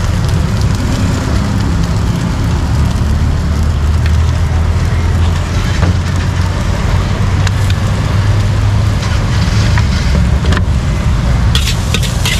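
Egg fried rice frying in a steel wok over a gas burner, with the burner's steady low rumble under the sizzle. A metal ladle scrapes and clinks against the wok now and then, turning into quick repeated clanks near the end as the rice is stir-fried.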